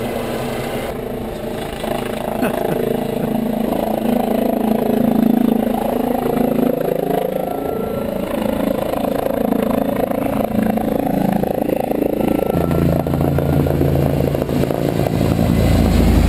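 Rescue helicopter's engine and rotor running steadily, growing louder and deeper near the end as it comes closer.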